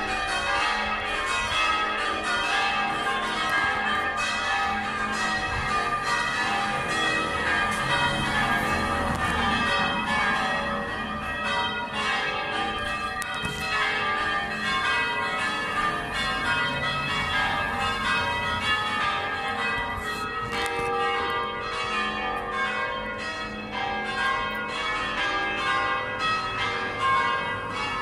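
The church bells of St Thomas, Lymington, ringing in quick succession, one strike after another with the tones overlapping and ringing on.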